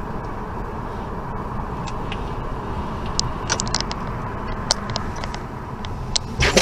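Car driving along, with steady road and engine noise heard from inside the cabin. Scattered short clicks come in from about halfway, and a louder knock or clatter sounds near the end.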